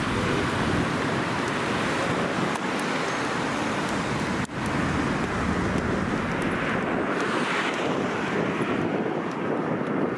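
Wind rushing on the microphone over the steady noise of road traffic. The sound drops out abruptly for an instant about four and a half seconds in.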